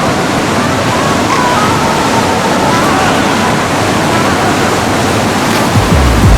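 Pacific Ocean surf: a steady rush of waves breaking and washing ashore. Low music comes in near the end.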